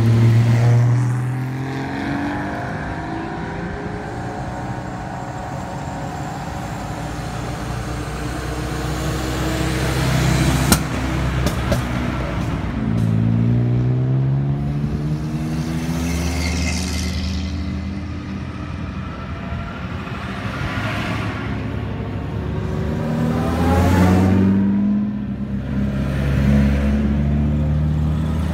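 Vintage cars driving slowly past one after another, each engine note swelling and fading as the car goes by. There is a single sharp click about eleven seconds in.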